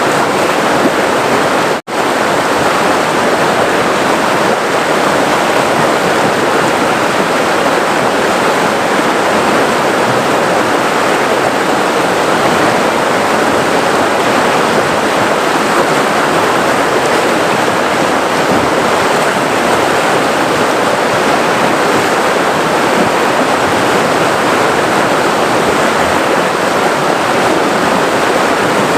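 River water flowing and rushing, a steady, dense roar of running water. It cuts out for an instant about two seconds in.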